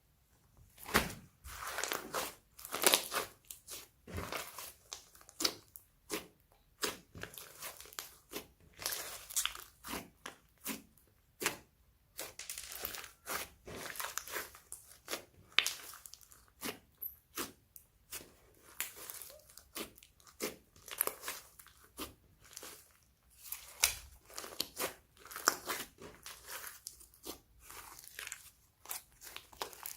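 Slime being kneaded and pressed by hand, giving quick crunchy crackles and pops in irregular clusters.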